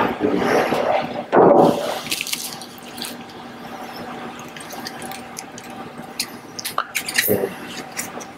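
Liquid gurgling as trimethoxymethylsilane is drawn into a syringe from an upturned reagent bottle, loudest about a second and a half in. Then a few light clicks of the syringe and plastic tubes being handled, over a faint steady hum.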